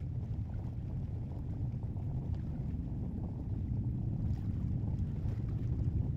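Low, steady rumble of Terran 1's nine methane-fueled Aeon 1 rocket engines as the rocket climbs, growing slightly louder.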